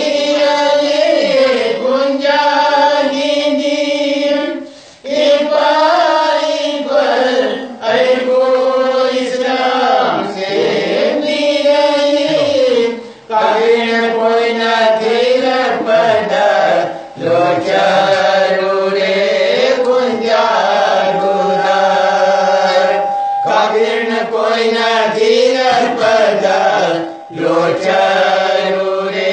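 A group of men singing a Manipuri marifat devotional song together in a chant-like style, in sung phrases a few seconds long broken by short breaths.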